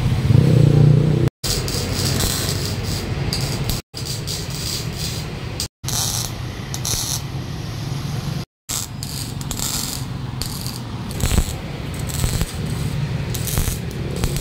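Arc welding on galvanised steel box section: a steady crackle and sizzle of the arc, dense with small clicks. It drops out abruptly four times.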